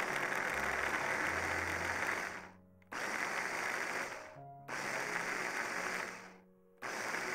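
Hands-on kitchen preparation noise in long noisy strokes of about two seconds each, three of them with a fourth starting near the end, while cookie dough or its ingredients are worked. Soft background music plays beneath.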